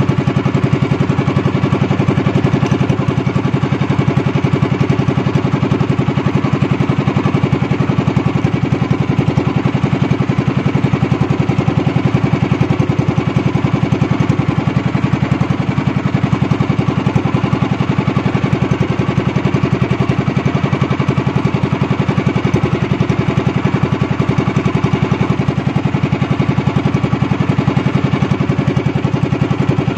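Small engine of a motorized outrigger canoe (bangka) running steadily at constant speed, a fast even putter with no change in pace.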